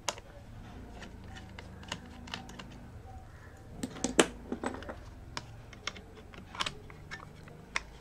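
Scattered small clicks and taps of a screwdriver working the single screw of a laptop's metal RAM shield, then the tool put down and the shield handled and lifted off, with a cluster of louder clicks about four seconds in.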